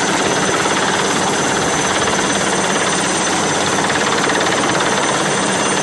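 Helicopter running close by: loud, steady rotor and engine noise with a fast, even beat.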